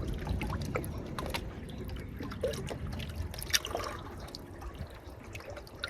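Lake water lapping and trickling at the shoreline, with many small scattered splashes and ticks over a steady low rumble.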